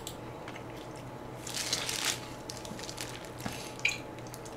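A person chewing food close to the microphone: wet mouth sounds and small clicks, with a denser crunchy stretch of about half a second about a second and a half in.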